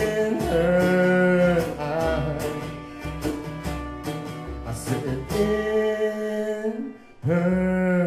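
Live acoustic band: strummed acoustic guitar and violin under a male singer holding long drawn-out notes. The strumming stops about six seconds in, and a last held note slides down near the end.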